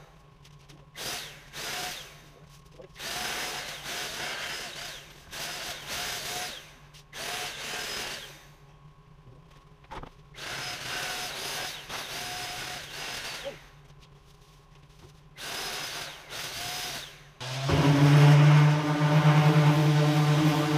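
Paint spray gun spraying thinned paint in about ten short trigger pulls, each a hiss of under two seconds, over a low steady hum. Near the end a much louder steady motor hum starts and keeps running.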